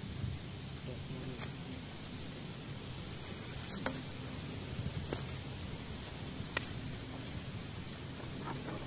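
Outdoor ambience: a steady low background rumble, with a short high squeaking chirp that repeats about five times, roughly every one and a half seconds.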